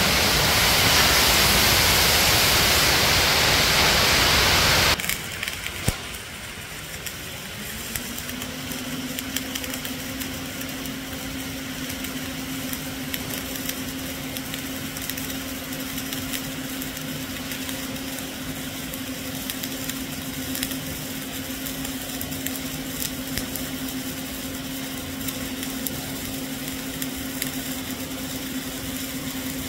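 A loud steady hiss cuts off abruptly about five seconds in. Then a flux-cored arc welding arc crackles and sizzles steadily on the root pass under CO2 shielding, with a steady hum underneath.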